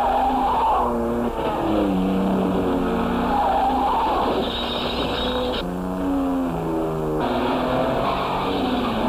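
Car-chase sound from an old film soundtrack: car engines running hard and tyres squealing, with pitch glides rising and falling throughout.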